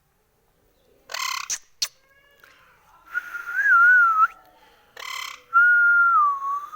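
A pet parrot's harsh squawk, twice, each followed by a long, wavering whistle; the second whistle dips slowly and then rises sharply at the end.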